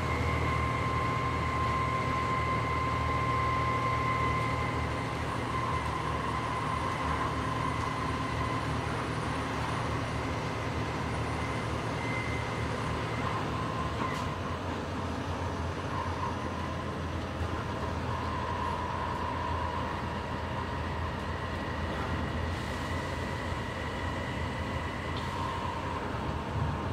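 Volvo B7TL double-decker bus heard from inside the cabin while under way: a steady engine drone with a high drivetrain whine over it. The sound eases slightly about five seconds in, the whine fades for a few seconds midway and then returns.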